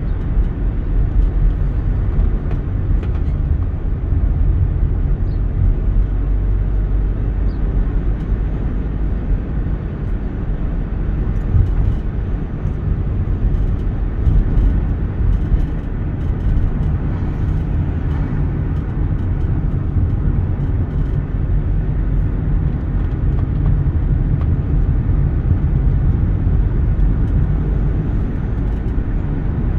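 A car driving, with a steady low rumble of engine and tyre noise.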